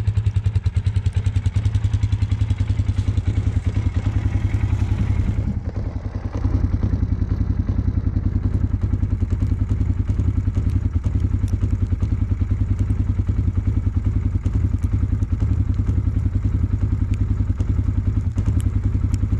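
Polaris Sportsman 570 ATV's single-cylinder four-stroke engine running steadily with a fast, even beat; the sound dips briefly about six seconds in.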